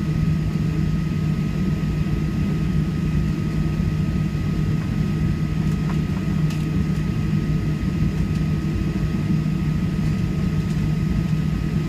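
Steady low drone of a Boeing 737-800 cabin, the CFM56 engines and air-conditioning running at an even, low power, with a faint high whine held on one pitch.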